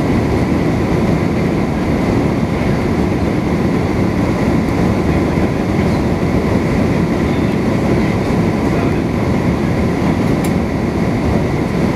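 Steady cabin noise inside an Airbus A350-900 on descent: the low rumble of airflow and its Rolls-Royce Trent XWB engines at reduced thrust, with a faint steady whine above it.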